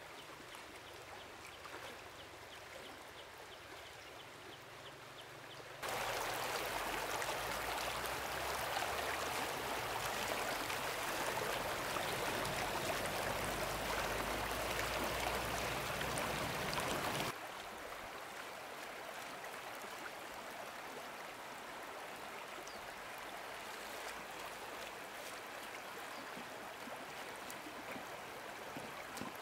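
Stream water running, a steady rush. It jumps much louder about six seconds in and drops back abruptly about eleven seconds later.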